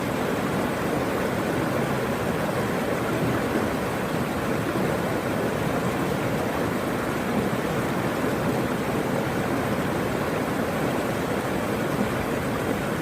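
Steady rush of flowing water, like a mountain stream or small waterfall, holding an even level throughout.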